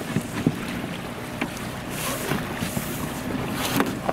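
Wind buffeting the microphone over sea water around a boat, with a steady low motor hum underneath and a few short knocks.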